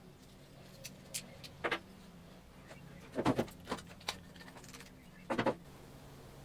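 Scattered clicks and knocks of objects being handled in a workshop, about eight in all with the loudest clusters about three and five seconds in, over a faint steady hum.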